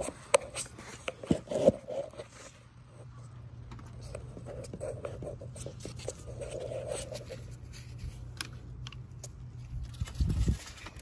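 Plastic parts of a car's radiator fan assembly being worked by hand under the hood: scraping with irregular clicks and knocks, louder in the first two seconds and with a heavier thump near the end, over a steady low hum.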